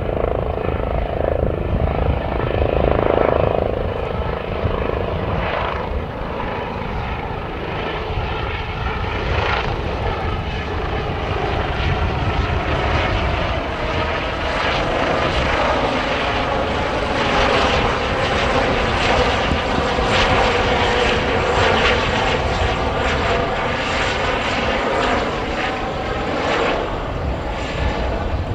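An Airbus H145 twin-engine helicopter flying low and close, its main rotor, Fenestron tail rotor and turbines running with a loud, steady noise and a wavering tone.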